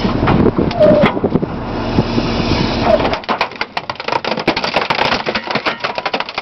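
Garbage truck's compactor running with the engine under load for about three seconds, then a rapid, irregular run of cracking and crunching as a microwave is crushed in the hopper.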